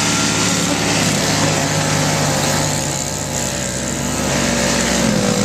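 Gas snowblower's small engine running steadily, its pitch dipping briefly about a second in and again near the end as it is pushed through deep snow.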